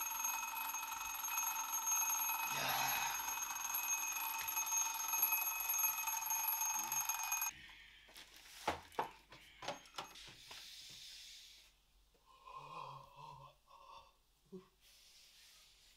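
Alarm clock ringing continuously, a steady shrill ring that cuts off abruptly about seven and a half seconds in as it is switched off. A few sharp knocks and clatters follow as the clock is handled.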